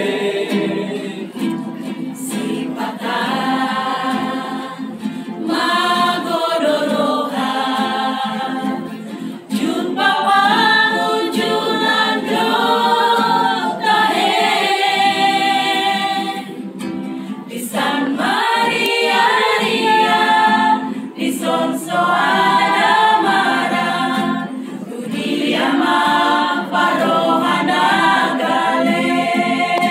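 Mixed choir of women and men singing a Christian praise song together, with brief breaks between phrases.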